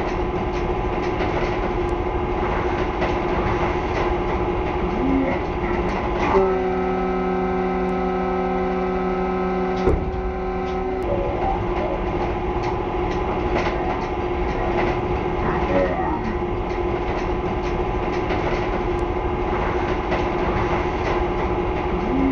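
Locomotive running at speed, a steady din of engine and wheels on rail with clicks over the rail joints. About six seconds in its horn sounds one long blast of about four and a half seconds.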